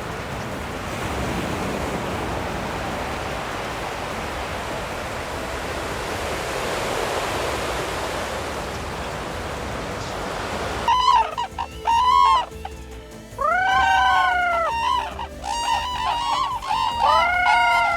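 A steady rushing noise, then about 11 seconds in a flock of cranes starts calling: loud, overlapping bugling calls about a second each, rising and falling in pitch.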